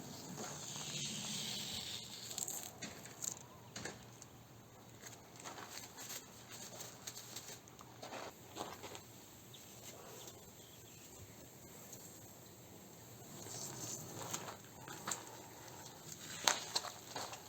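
Masking tape being peeled off freshly painted car panels: faint irregular ripping and crackling with scattered clicks, a longer rasp in the first couple of seconds and a cluster of sharper clicks near the end.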